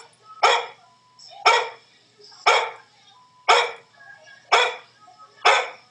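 A dog barking in an even rhythm, about once a second, six barks, played back from a video on a computer rather than by the dog in the room.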